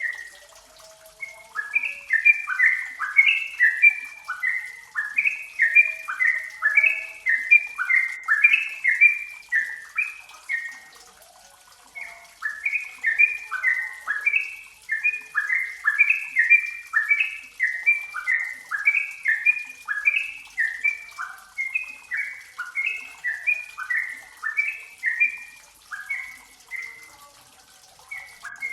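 Yellow-vented bulbul (trucukan) singing: a rapid, bubbling chatter of short falling notes, delivered in two long bouts with a brief pause about eleven seconds in.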